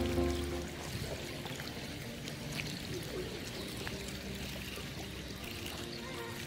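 A music track cuts off in the first half second, leaving a steady trickle of running water with a few faint ticks.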